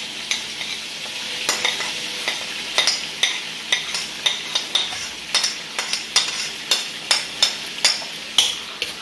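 Oil sizzling in a wok of frying chicken livers as minced garlic is scraped into it. Repeated sharp clicks of a metal slotted spoon against the plate and the wok come more often, about two a second, in the second half.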